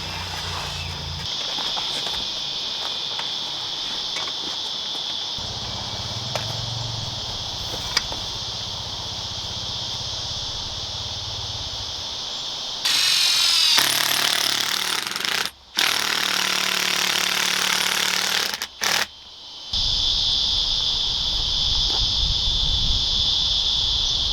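A summer insect chorus buzzing steadily and high-pitched. For about seven seconds past the middle, a louder broad rushing noise covers it, cut off abruptly twice.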